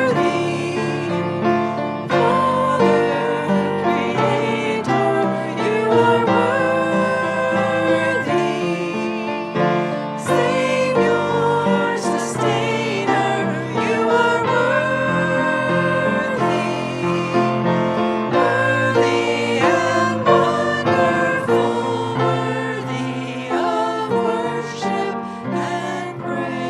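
Worship music during a church service: voices singing a hymn or worship song with instrumental accompaniment, continuing steadily.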